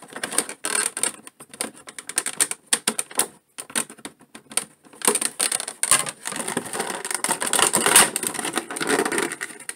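Scissors snipping through a clear plastic blister tray, with short sharp clicks and the crackle of stiff plastic. The crackling grows denser about halfway through as the plastic is pulled apart.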